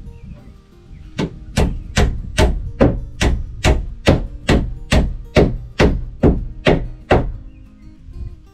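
Hammer driving nails into a wooden rafter, toenailing it to the top plate of the wall: about fifteen steady blows, a little over two a second, starting about a second in and stopping shortly before the end.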